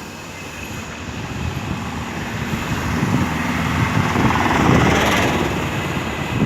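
Loud rumbling of a passing vehicle, growing louder and peaking about five seconds in.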